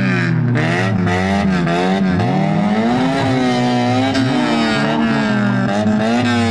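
Several banger racing cars' 2-litre engines revving hard together, their pitches rising and falling and overlapping as the cars accelerate and lift off.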